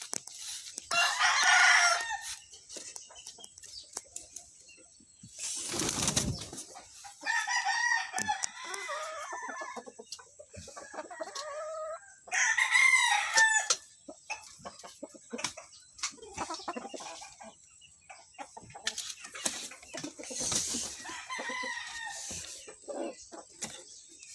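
Gamefowl roosters crowing, about four separate crows of a second or two each, with scattered clucks and scuffs in between and a brief rustle about six seconds in.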